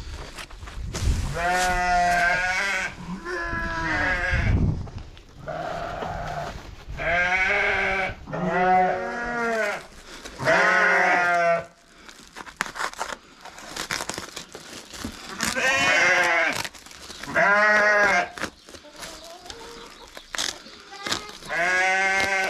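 A flock of sheep bleating: about nine long, wavering calls, one after another, with short gaps between them.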